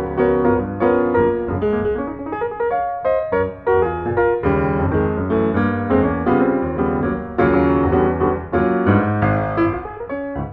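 Background piano music, a lively run of notes over a steady bass line.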